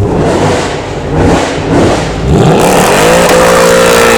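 High-performance car engine revving hard: a few quick blips in the first half, then the revs climb and hold at a steady high pitch from about three seconds in.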